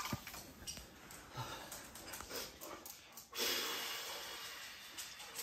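A dog snuffling and breathing, with a sudden breathy rush about three seconds in that fades away over the next two seconds.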